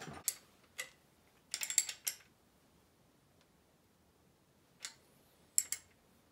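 Socket ratchet clicking in a few short bursts as the oil pump's mounting bolt is run in, with a couple of single metallic ticks between them.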